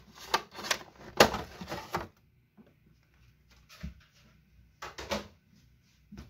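Plastic packaging of a trading card collector box being handled: a quick run of sharp plastic clicks and rattles in the first two seconds, then one more click about four seconds in and a short cluster near five seconds.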